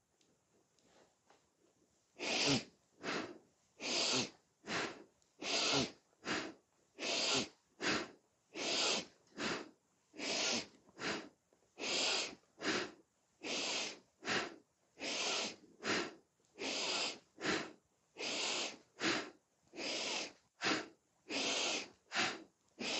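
A woman breathing forcefully in and out in turn, about four breaths every three seconds, keeping time with a seated cat-cow spinal flex. The breathing starts about two seconds in.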